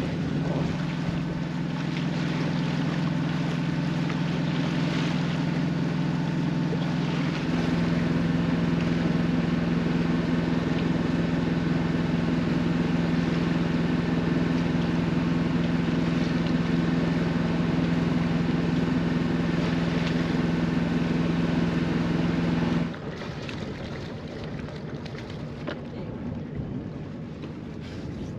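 A sailboat's inboard auxiliary engine running steadily under way, a low even hum with wind and water hiss over it. It gets a little louder about a quarter of the way in and cuts off suddenly near the end, leaving only wind and water.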